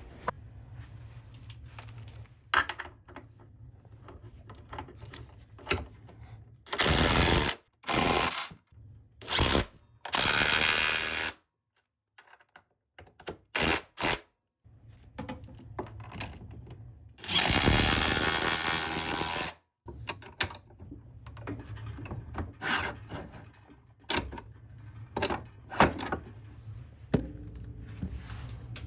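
Power drill running in short bursts, the longest about two seconds, as screws or bolts are driven during a workbench vise install. Between the bursts come scattered knocks and clicks of tool handling.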